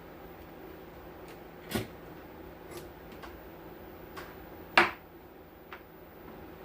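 A few sharp clicks and light knocks of hand tools and parts being handled during work on a circuit board, two louder knocks about two and five seconds in, over a faint steady hum.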